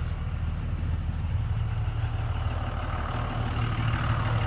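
Diesel engine idling steadily, its pitch stepping up slightly about a second in.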